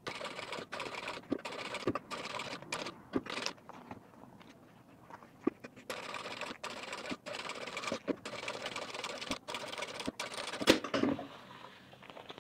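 Sewing machine stitching through leather, topstitching alongside an opened seam, with a regular clicking from the needle mechanism. It runs in two stretches with a short pause about four seconds in, and stops with one sharp, louder click near the end.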